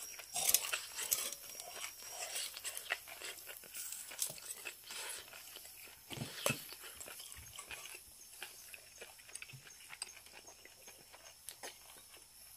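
A person chewing grilled beef omasum, with irregular wet crunching and biting sounds that are busier in the first half and thin out toward the end.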